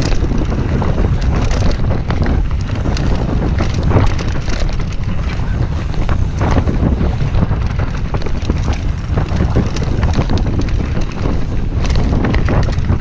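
Wind buffeting the microphone on a fast mountain bike descent, over the rumble of tyres on a dirt trail and frequent knocks and rattles from a Commencal Meta V4 mountain bike as it hits bumps and roots.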